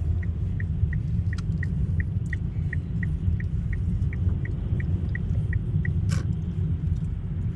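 Steady low rumble of a car heard from inside the cabin, with a rapid run of short, evenly spaced high ticks, about three a second, that stops about six seconds in. A single sharp click follows just after.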